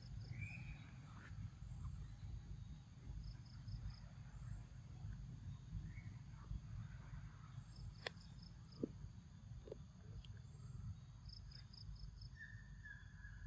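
Faint outdoor ambience: a steady low rumble with quiet high-pitched chirps in short rapid runs of four or five, a few brief faint calls, and one sharp click about eight seconds in.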